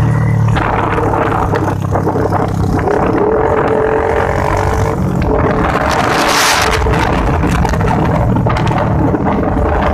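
Motorcycle engine running steadily under way along a winding road, with wind noise on the microphone; a brief rush of noise about six seconds in.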